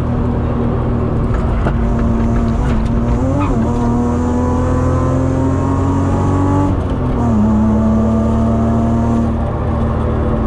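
BMW E36 323i's 2.5-litre straight-six pulling hard, heard inside the cabin over heavy tyre and road rumble. The engine note climbs steadily, drops back sharply about seven seconds in, then holds level.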